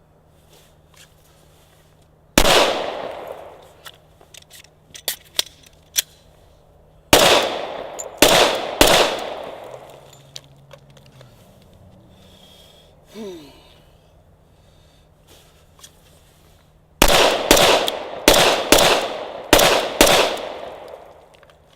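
Glock 21 Gen 4 .45 ACP pistol shots, each with a ringing tail. There is a single shot a little over two seconds in, then three shots around seven to nine seconds, then a fast string of about eight shots near the end.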